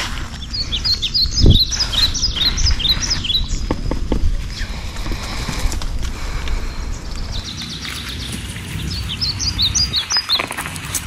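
Birds chirping in two runs of quick, short falling notes, one starting about half a second in and another near the end, over low rustling and knocks with a louder thump about one and a half seconds in.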